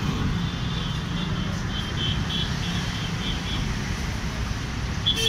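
Street traffic noise: a steady low rumble of road vehicles. A faint high chirping repeats about two to three times a second for a couple of seconds.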